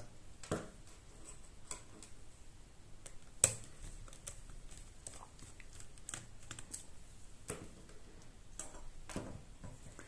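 Quiet, scattered small clicks and taps of a screwdriver turning out the Dell Latitude 7290's metal hinge screws, with one sharper click about three and a half seconds in.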